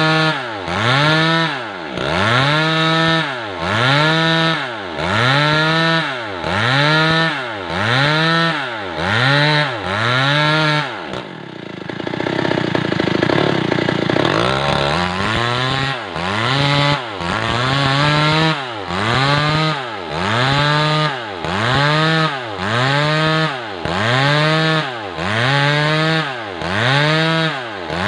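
Stihl MS 381 two-stroke chainsaw ripping a large weru log lengthwise, its engine pitch rising and falling about once a second as the saw works through the cut. About halfway through, the cycling gives way to a few seconds of steadier sound before it resumes.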